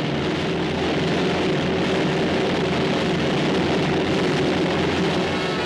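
Lockheed L-1649A Starliner's four Wright R-3350 radial piston engines at takeoff power: a steady, loud engine drone under a broad rushing noise.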